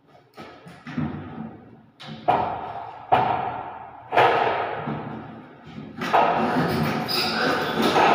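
A series of loud knocks, about five in all at uneven gaps of one to two seconds, each ringing out and echoing in the bare room.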